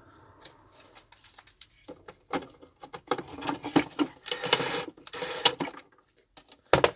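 Screwdriver working at a stubborn screw in a vacuum cleaner's plastic housing: scraping and a rapid run of clicks and knocks, busiest from about three to five and a half seconds in, then two sharp clicks near the end. The screw will not undo.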